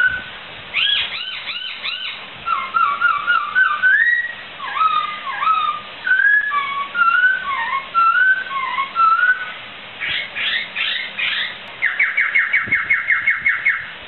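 Poksai (laughingthrush) singing a loud, varied song of clear whistled phrases, slurred notes rising and falling. Near the end comes a fast run of about a dozen short repeated notes.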